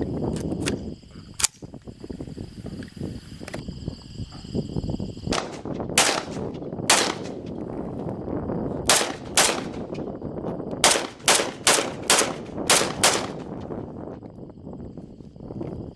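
Semi-automatic rifle fed from a Lancer L5 magazine, fired one shot at a time: about a dozen sharp shots at an uneven pace, some in quick pairs about half a second apart, with a few fainter shots in the first few seconds.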